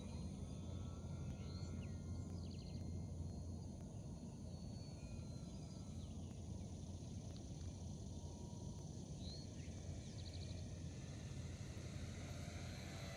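Faint outdoor ambience: a steady low rumble with a constant high insect drone and a few short bird chirps, over the faint, distant whine of a radio-controlled airplane's motor that slowly shifts in pitch as the plane flies.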